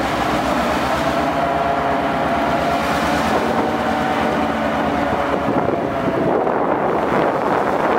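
Diesel-electric locomotive engine running steadily at close range, a low pulsing rumble with held mechanical tones over it. Wind buffets the microphone toward the end.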